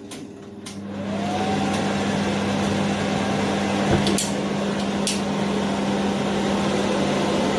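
Cooker hood extractor fan switched on. Its motor spins up with a rising whine about a second in, then runs steadily with a hum and a rush of air. Two short clicks come about four and five seconds in.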